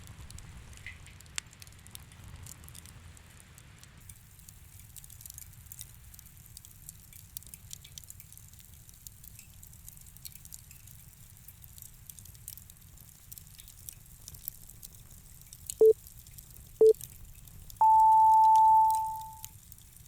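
Faint crackling campfire ambience, then two short low beeps about a second apart followed by one higher, longer beep: a timer signalling the end of a 50-minute pomodoro study session.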